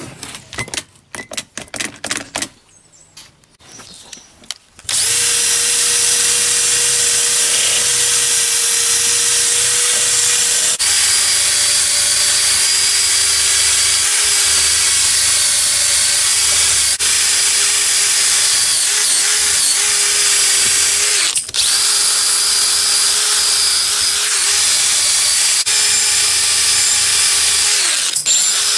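A Bosch 18V cordless drill spinning a wire wheel brush against a steel hatchet head: a steady whine over a scratching hiss, its pitch stepping slightly lower about eleven seconds in, with a brief break about two-thirds through. It starts about five seconds in, after a few clicks and knocks as the hatchet head is clamped down.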